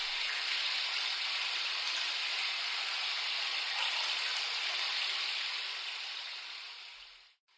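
Water running steadily from a shower or tap with an even hiss, fading out near the end and then cutting off abruptly.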